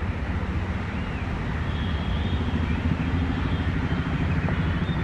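WAP-4 electric locomotive approaching at low speed with a steady low hum and rumble that grows a little louder.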